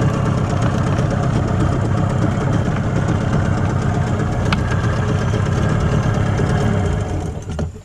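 A small boat's engine running steadily, then dying away and cutting off near the end.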